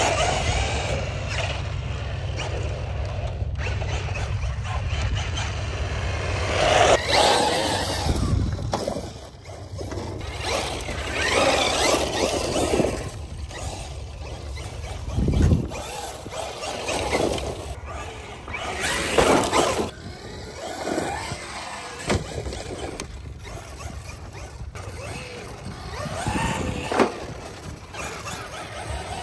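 Traxxas XRT Ultimate electric RC monster truck being driven hard: motor whine and tyre squeal swelling and fading in repeated bursts every few seconds, with a steady low rumble under the first few seconds.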